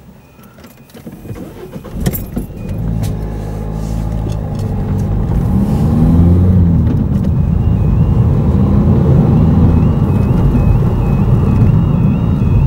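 A car driving along a road, heard from inside: the engine pulls up through the gears over tyre and road rumble, growing louder over the first few seconds. From about halfway in, a railway level crossing's alternating two-tone warning alarm sounds faintly as the car nears the flashing crossing.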